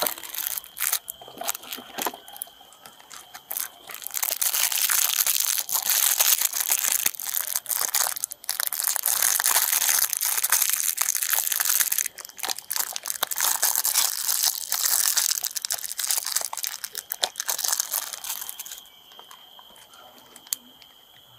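Plastic wrapper crinkling and crackling close by as a mouthpiece is unwrapped for a handheld breath tester. The rustling runs dense from about four seconds in and stops near the end.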